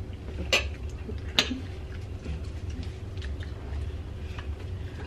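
Eating sounds at a table: two sharp clicks of forks on plates in the first second and a half, then fainter small clicks and chewing over a low steady hum.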